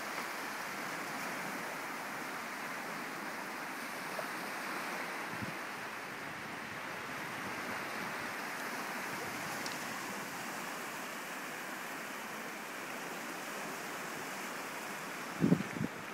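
Waves washing on a shore, a steady, even rush of surf. Near the end come two brief low thumps.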